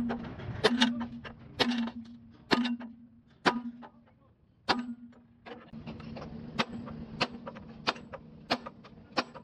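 Hammer blows riveting a plate onto a steel truck chassis rail, about one a second, each leaving the steel ringing. About halfway through, a steady hiss comes in and the blows come faster and lighter.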